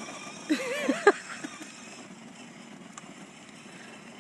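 A short high-pitched voice sounds in the first second, with a sharp knock about a second in, then only faint steady background noise.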